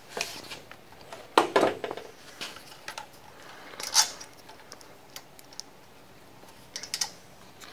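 Scattered small clicks and light metallic rattles of hands fitting crimped ring terminals and wires onto a bolt grounding stud, with the loudest clicks about a second and a half in and again about four seconds in.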